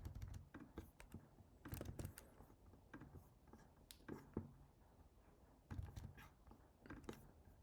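Faint computer keyboard keystrokes and mouse clicks, coming in short scattered clusters over a low hum.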